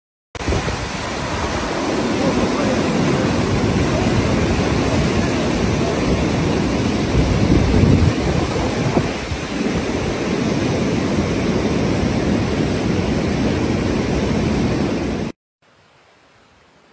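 Heavy rain and rushing floodwater: a loud, even rush of noise with no distinct events, which cuts off suddenly near the end, leaving only a faint hiss.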